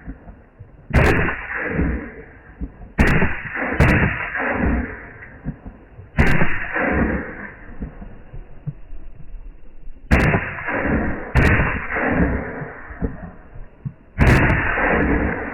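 Pistol shots, seven in all at irregular intervals, each sharp crack followed by a rolling echo that dies away over about a second.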